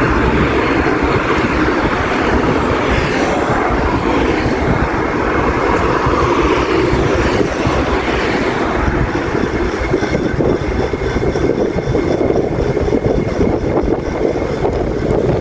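Wind rushing over the microphone with road noise, steady and loud, while riding an e-bike with a 1000 W front hub motor.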